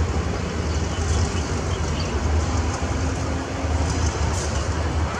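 Diesel-electric locomotive engine rumbling low and steady as it hauls a passenger train slowly toward the camera.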